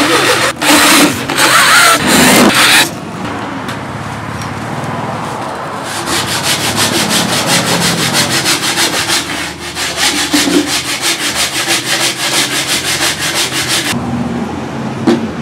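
Electric drill driving self-tapping screws into a board panel in short loud bursts, followed by several seconds of even, rhythmic rubbing strokes, about four a second.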